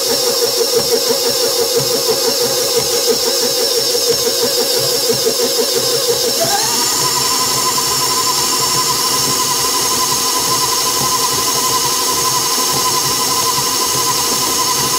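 KitchenAid Pro 600 stand mixer motor running with a flex-edge beater creaming butter and sugar, a steady whine with a regular pulsing rhythm. About six seconds in the speed is raised: the whine glides up to a higher pitch and holds steady there, smoother than before.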